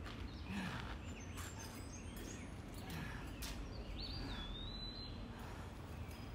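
Outdoor ambience: a steady low background rumble with a few faint knocks, and a single bird call about a second long around four seconds in.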